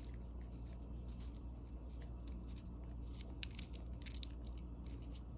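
Irregular small clicks and scrapes of a bent metal pin tool and gloved fingers working the threaded ring off the head of a vintage Williams ratchet, over a steady low hum.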